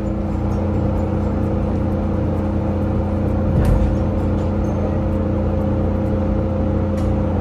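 Steady hum of a train's onboard equipment, several held tones over a low rumble, heard from inside the carriage while it stands at a platform, with one low thump a little past halfway as the train starts to pull away.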